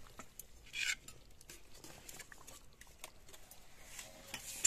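Metal spatula stirring and scraping through thick chicken curry in a steel kadai. There is a brief scraping hiss about a second in, scattered small clicks, and a sharp clack near the end.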